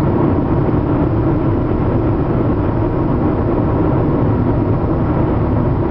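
Steady road noise from inside a car's cabin while driving: a constant drone of tyres and engine.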